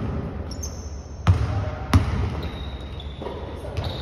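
Basketball dribbled on a hardwood gym floor: three hard bounces in the first two seconds, then thin high sneaker squeaks and a fainter knock near the end, in a hall with some echo.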